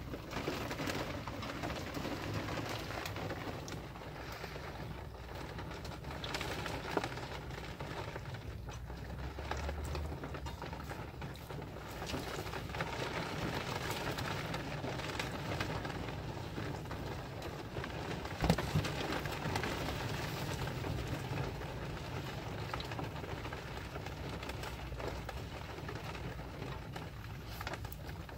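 Husky puppy chewing and gnawing a plush toy, a steady crackly, rustling, wet mouthing noise with small clicks, and one sharper knock about two-thirds of the way through.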